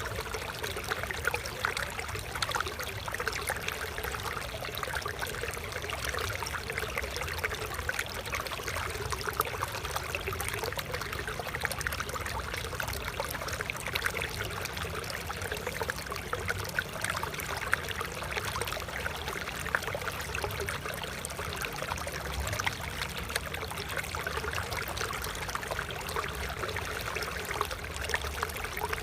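Stream water flowing and trickling steadily, with a continuous babble of small splashes.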